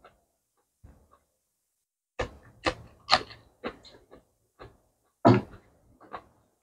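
Close-miked eating sounds of a person eating by hand: after a short quiet, a run of sharp, wet smacks and clicks of chewing and handling food for about four seconds.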